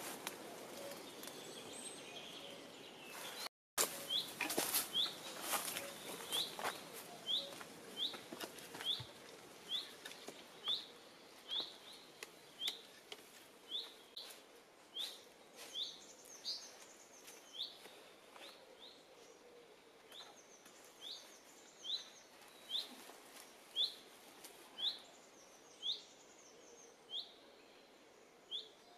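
A small woodland bird repeating one short, sharp, high note about once a second, with a fainter, higher twittering from another bird now and then. In the first few seconds, before the bird starts, there is rustling of footsteps through dry leaf litter.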